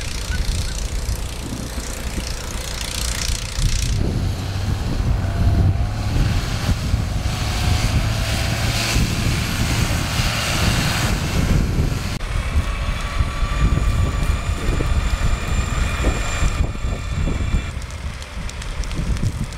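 Fire truck engine running as the truck drives across the field, over a gusty low rumble. Steady high-pitched whines join in for several seconds in the second half.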